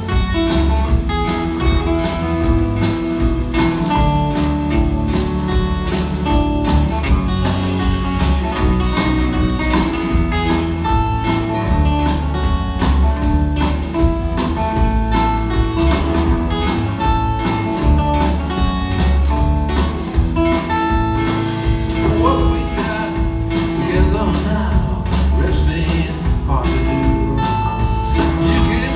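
Live blues-rock band playing a song with no vocals: amplified acoustic-electric guitar and electric bass over a steady drum-kit beat.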